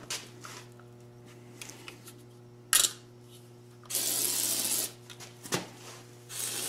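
Aerosol can of PB Blaster penetrating oil spraying onto a go-kart's steel rear axle: an even hiss lasting just under a second, about four seconds in. A brief sharp burst of sound comes a little earlier, the loudest moment, over a steady low hum.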